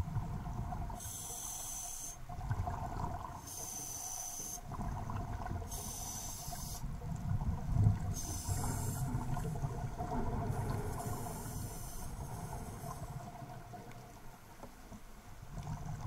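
A diver breathing underwater through a Triton Pro hookah system's demand regulator: a hiss of about a second on each inhalation, roughly every two seconds, with a low bubbling rumble from the exhalations between them. The breaths pause near the end.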